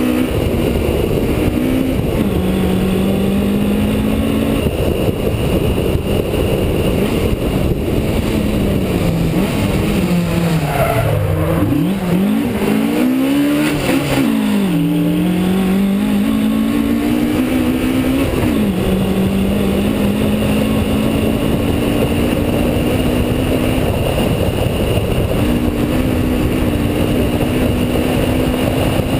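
Rally car engine, heard from on board, pulling hard through the gears: the pitch climbs and then drops back at each upshift. Around ten to fifteen seconds in, the revs fall and rise several times in quick succession before the car accelerates again. Steady road and wind noise runs underneath.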